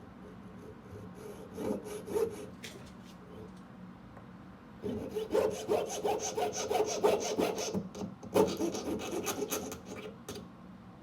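Jeweler's saw frame cutting through metal tubing with quick back-and-forth strokes: a couple of light strokes about two seconds in, then steady, rapid sawing from about five seconds in until shortly before the end.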